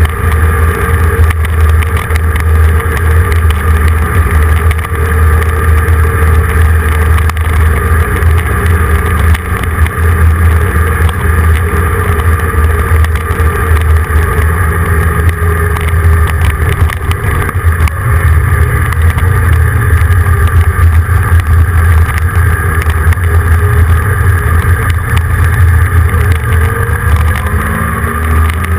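Steady drone of a moving vehicle's engine with a heavy low rumble and road noise, heard from a camera mounted on the vehicle; the engine note rises near the end.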